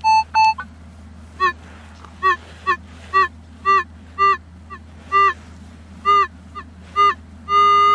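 Minelab CTX 3030 metal detector giving repeated short, pitched target beeps as the coil sweeps back and forth over a buried metal target, then one long held tone near the end as the coil stays over it.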